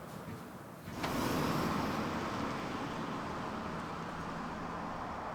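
A car driving: steady road and engine noise that starts abruptly about a second in.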